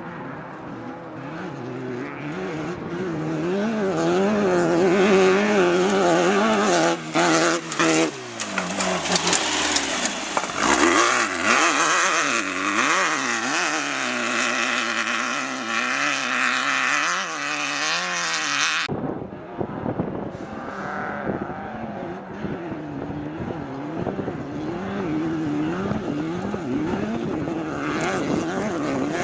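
Air-cooled VW engine of a Class 12 off-road race car revving hard, its pitch rising and falling again and again as it is driven. It grows louder over the first few seconds, and the sound changes abruptly about 19 seconds in.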